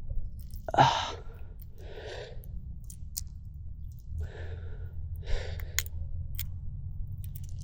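A man sighing heavily, about four breaths out with the first the loudest, as he struggles to work a treble hook out of a bass by hand. Faint small clicks come through now and then over a steady low rumble.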